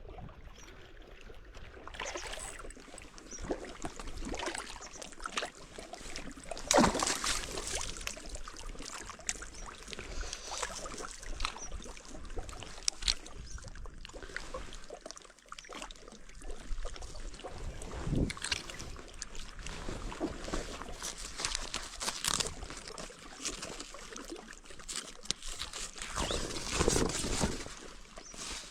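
Water sloshing and lapping, with irregular louder splashes or knocks every few seconds.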